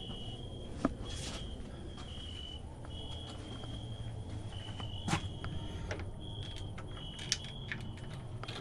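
A cricket chirping at night: short high-pitched trills repeated about once every half second to second. A few faint clicks and knocks fall about a second in, near the middle and near the end.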